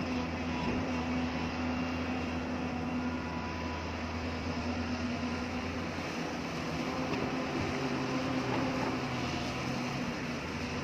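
Hyundai excavator's diesel engine running steadily under work, a constant drone with a held hum.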